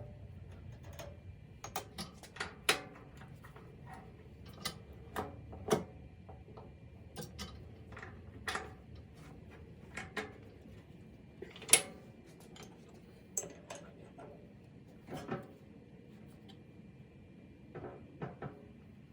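Metal tools and parts being handled on a workbench: scattered clinks, clicks and knocks at irregular intervals, the sharpest about twelve seconds in.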